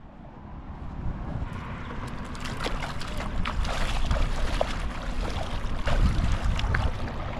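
Bare feet wading and splashing through shallow water, the splashes starting about a second and a half in, over wind rumbling on the microphone.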